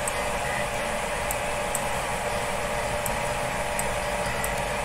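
Steady fan-like hum and hiss, with a few faint high ticks scattered through it.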